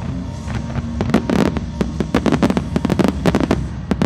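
Fireworks display: rapid, overlapping bangs of many aerial shells bursting in quick succession, beginning about a second in, with a brief lull near the end. Music is heard briefly at the start.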